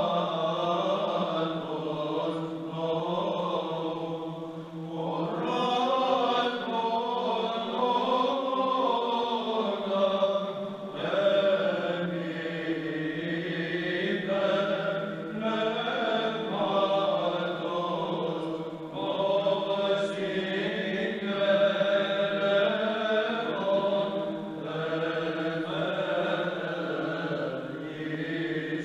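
A men's choir of cantors singing Byzantine chant unaccompanied. A steady low drone, the ison, is held beneath the moving melody line.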